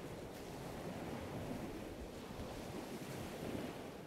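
Ocean surf washing onto a beach, a soft, steady rush that begins to fade near the end.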